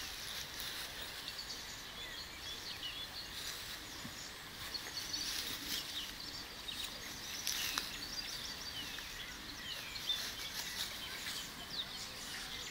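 Small birds chirping in the background, many short twittering calls, with occasional brief rustles of a dog rolling on dry grass.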